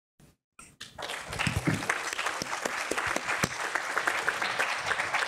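Applause, many separate hand claps, starting about a second in after a brief silence.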